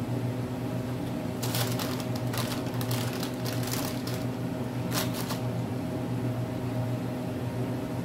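Paper crinkling and rustling in several short bursts as hardened homemade cough drops are peeled off it, over a steady low hum.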